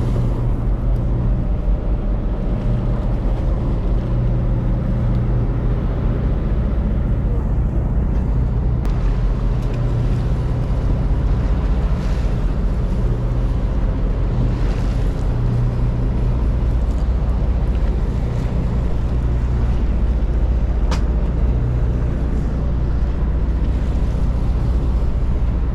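Fishing boat's engine idling, a steady low hum, with a couple of short sharp clicks partway through.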